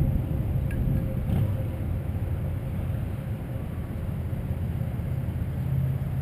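Wind rumbling across the microphone, with the faint steady whine of an electric RC model plane's brushless motor and propeller in flight.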